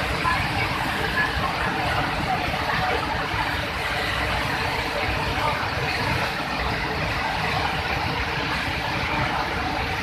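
Water rushing through the open spillway gates of a dam and crashing into the churning white water below: a loud, steady rush.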